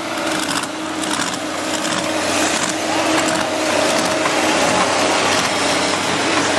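Excavator's diesel engine running under load, a steady drone with repeated crunching and knocks of the machine and chain working. Towing the lifted pickup, the sound grows slightly louder.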